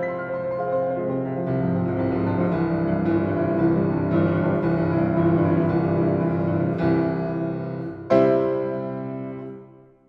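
Grand piano played in a full, sustained passage, then a loud chord struck about eight seconds in whose ring dies away: the close of a piece.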